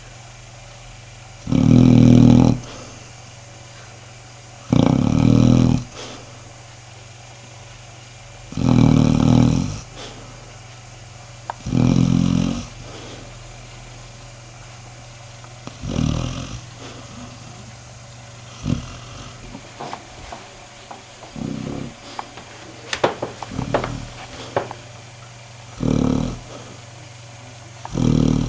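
Dog snoring: a rasping snore on each breath, about every three to four seconds, loud and long for the first four and then softer and shorter. A few sharp clicks come a little past three quarters of the way through.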